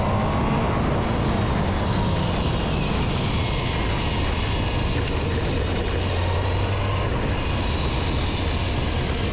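Suzuki GSX-R750's inline-four engine and wind noise on the move, the engine note falling as the bike slows under steady front braking from about 50 mph while new brake pads are bedded in to honed rotors.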